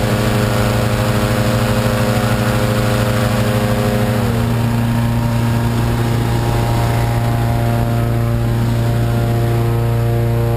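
Hot-air balloon burner roaring steadily into the envelope over the constant note of a petrol-engine inflator fan. About four seconds in, one of the engine notes falls in pitch while the main note holds.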